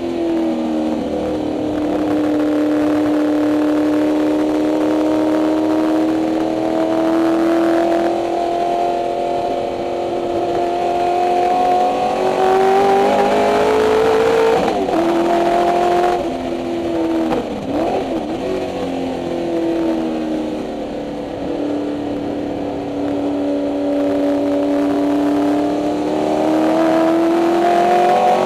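Ford 289 Windsor V8 of a 1964 Mustang race car heard from inside the cabin at racing speed. The engine note drops at the start, then climbs slowly for several seconds. Around the middle it wavers and breaks up, then climbs again toward the end.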